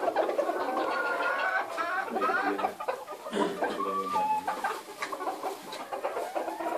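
A group of chickens clucking and calling over one another, short clucks mixed with a few longer, drawn-out calls.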